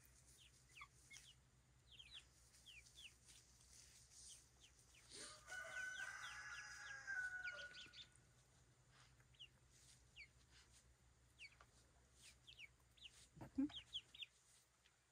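Young pullets peeping softly, with short high cheeps scattered throughout, and one longer drawn-out chicken call starting about five seconds in.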